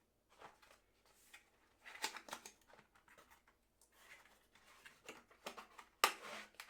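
Wire stripping pliers being handled: faint scattered clicks and clacks, a small cluster about two seconds in and the loudest just after six seconds.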